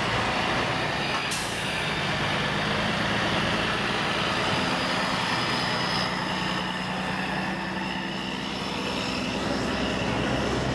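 Heavy truck diesel engines running at low revs as the trucks roll past at walking pace, with a short burst of air hiss about a second in.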